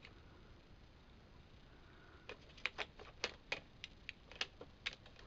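Small plastic eyeshadow compacts clicking and tapping as they are handled: a quick run of about ten sharp clicks in the second half, after a couple of quiet seconds.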